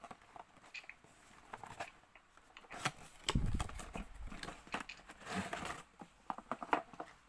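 A cardboard toy box being opened and a plastic-wrapped toy car taken out: scattered clicks and scrapes, a low thump with rustling about three and a half seconds in, and another rustle around five seconds in.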